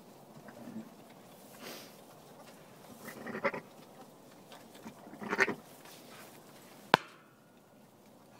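Sheep bleating twice in short calls about two seconds apart, with a single sharp click near the end.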